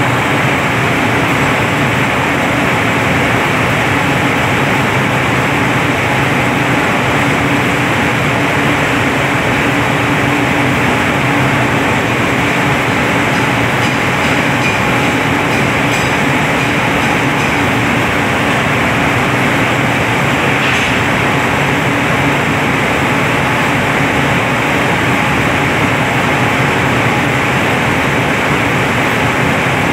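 Industrial coconut chips dryer running: a loud, steady machine hum and rush of noise that holds level throughout.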